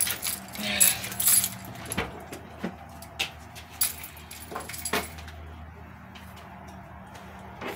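Scattered clicks, knocks and rustling of someone handling things at a vehicle's open door and leaning into the cab. The clicks come mostly in the first five seconds, then it goes quieter, over a faint steady low hum.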